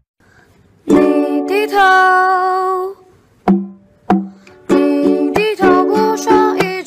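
Background music led by a ukulele. It comes in about a second in with a held chord, and from about halfway it turns into a quick run of plucked notes.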